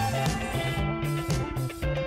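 Upbeat background music with guitar, a bass line and a steady beat.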